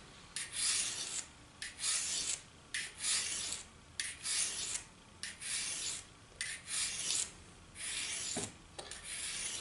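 A 10-inch hand file drawn across the edge of a broadhead in steady, even strokes, about one a second, sharpening the blade's bevel freehand.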